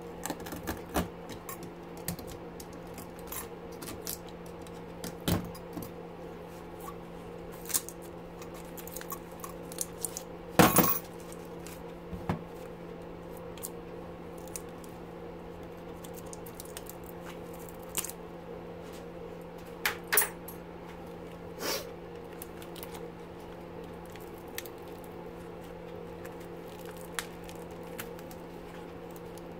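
Scattered metallic clinks and knocks from a small motor's parts and hand tools being handled at a bench vise as the motor is dismantled for its copper coil. There is one sharper knock about ten seconds in and a few more around twenty seconds, over a steady low hum.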